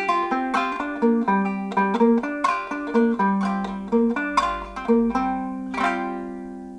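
Solo banjo playing the closing instrumental phrase of a folk tune: a run of plucked notes, then a final strum about six seconds in that rings and fades out, ending the song.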